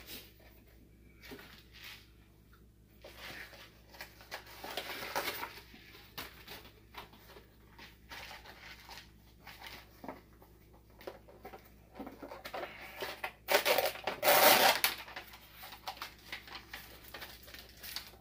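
Crinkling and rustling of instant ramen packaging being handled and opened, in irregular bursts, loudest about five seconds in and again near the end.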